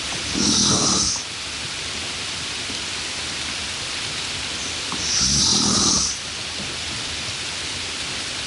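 A steady hiss with two louder sounds, each about a second long, about five seconds apart.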